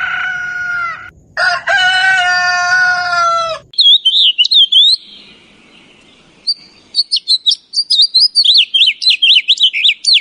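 A rooster crows: a short opening note, then a long held note that falls slightly and ends about three and a half seconds in. A small songbird then sings quick, high, chirping notes in two bouts, the second one longer.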